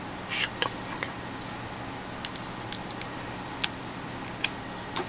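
Small snap-fit plastic parts of a 1/144 High Grade Gunpla kit clicking and tapping as they are handled and pressed together, in sharp, irregular ticks about half a second to a second apart, over a steady low hum.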